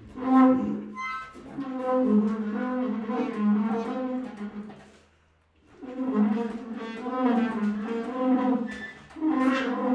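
Prepared low brass instrument played with a hand in the bell, sounding long, wavering notes that bend up and down in pitch. Two phrases, with a brief gap about five seconds in.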